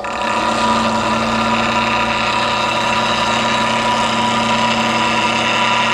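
Bowl gouge being ground on the fine stone of a bench grinder running at low speed: a loud, steady grinding hiss over the grinder motor's hum, starting abruptly.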